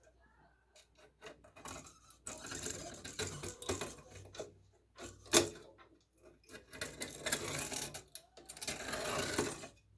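Hand deburring tool scraping around the cut edge of a metal tube, in stretches of rasping strokes, with a sharp click about five seconds in. The scraping shaves off the burr that cutting the tube to length left on its edge.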